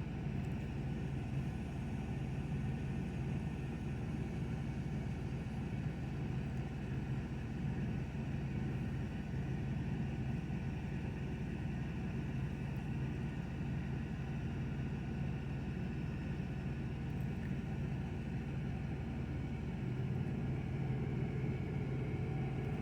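A steady low mechanical hum that holds the same pitch without a break.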